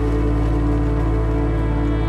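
Background music of slow, held ambient tones with a steady low drone.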